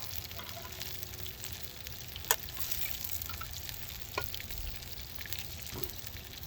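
Battered squid sizzling as it cooks in the hot wood-fired oven, a steady crackling hiss, with a sharp click about two seconds in and a smaller one about four seconds in.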